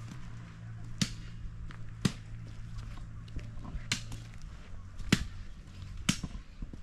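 Sharp hammer blows, about one a second, over a steady low hum that stops about four seconds in.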